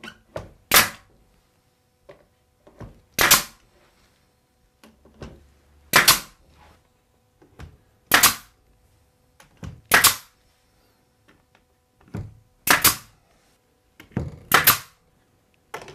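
Pneumatic brad nailer driving 1¼-inch brads through door casing into the jamb: seven sharp shots, one every two to three seconds, with quieter clicks between them.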